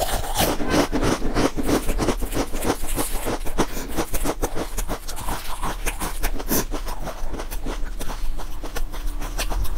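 Close-up crunching and chewing of crisp stacked potato chips, a dense run of sharp cracks, mixed with the crinkle of the plastic bag that holds the chips.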